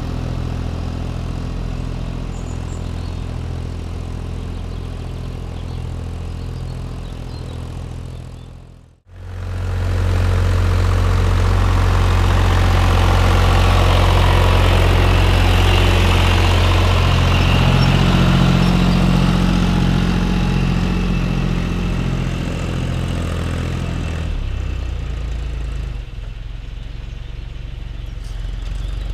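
Tractor engine running steadily during ploughing. The sound dips away to nothing about a third of the way in, then comes back louder, and it drops somewhat again near the end.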